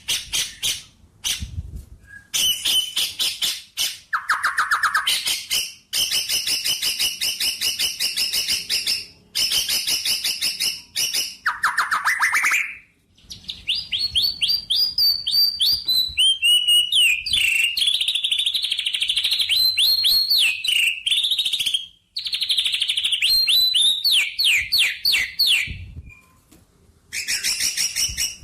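Songbird singing: phrases of rapid repeated chirps and trills, some pitched low and buzzy, most high and clear, each lasting one to several seconds with short pauses between.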